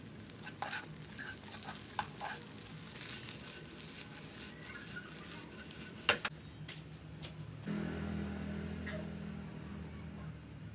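Fried rice sizzling in a nonstick wok as a wooden spatula stirs and scrapes it, with scattered light knocks. About six seconds in comes one sharp, loud knock as the wok is tossed, followed by a steady low hum.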